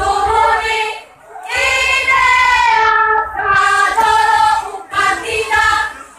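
A chorus of high voices singing together in unison, in sung phrases of one to two seconds broken by short pauses.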